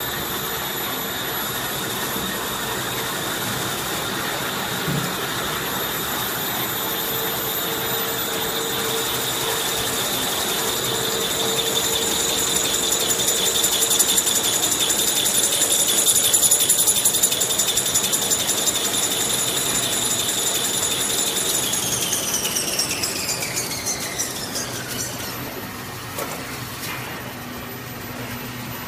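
Automatic toilet paper rewinding machine running at speed: a steady high whine over a fast mechanical clatter. About two-thirds of the way through, the whine falls steadily in pitch and the sound drops as the machine slows down.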